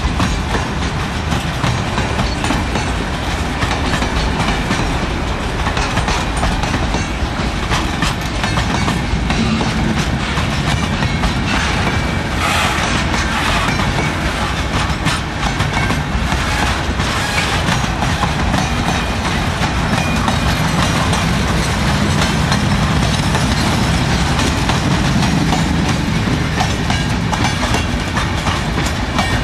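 Freight train of boxcars and covered hopper cars rolling past close by: a loud, steady run of steel wheels clattering on the rails, with continuous clicking.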